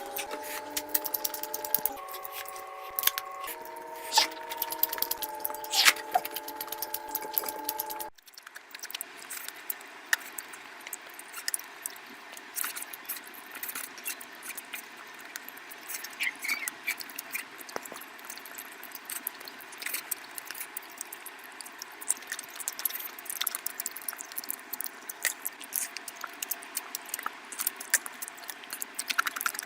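Background music with a simple melody and scattered clicks, cutting off suddenly about eight seconds in. Then mukbang eating sounds: many quick wet clicks and squishes of chewing and of food being handled.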